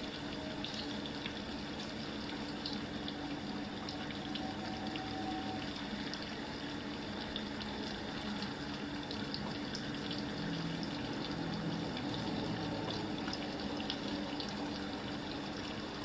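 Canada goose breasts frying in a hot pan greased with cooking spray: a steady sizzle with scattered small pops of spitting fat.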